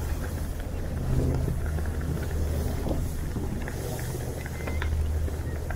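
Steady low drone of a harbour ferry's engines under way, with a hiss of wind and water over it.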